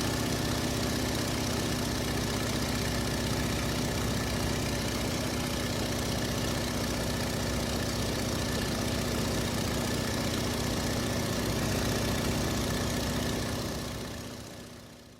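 Car engine idling steadily, fading out near the end.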